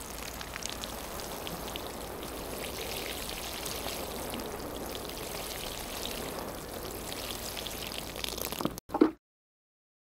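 Rain falling, a steady patter of drops on a surface; it breaks off with a short loud thump about nine seconds in, followed by silence.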